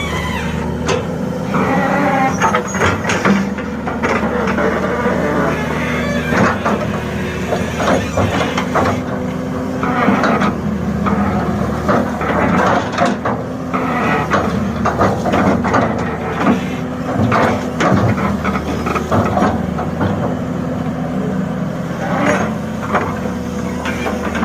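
Excavator's diesel engine running steadily under load, with frequent knocks and rattles from the working machine.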